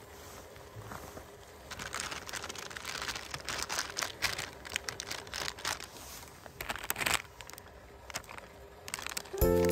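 Plastic instant-ramen packet crinkling as it is handled, for several seconds. Background music comes in near the end.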